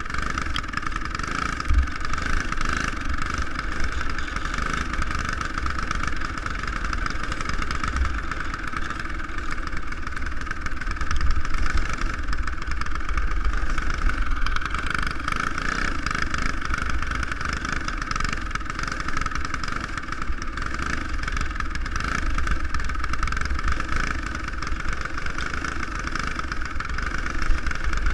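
Racing kart's single-cylinder four-stroke clone engine running hard at steady race speed, heard from on board, with wind buffeting the microphone underneath.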